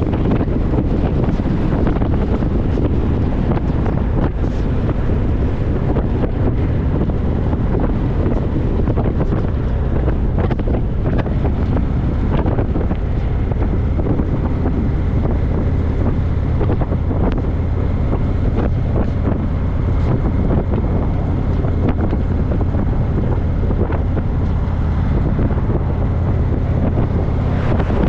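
Steady wind rushing over the microphone, with a low rumble underneath that holds even throughout.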